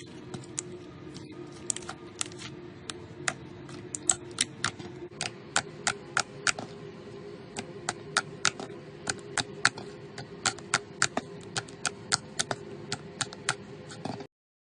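Slime being pressed and squeezed, giving off a quick, irregular run of sharp clicks and pops, about three a second, over a steady low hum. The clicks grow louder and more frequent a few seconds in, and all sound stops abruptly just before the end.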